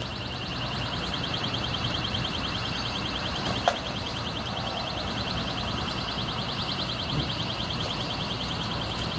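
Electronic burglar alarm sounding a steady high-pitched tone that pulses rapidly, over a low steady hum. A single sharp click comes a little over three and a half seconds in.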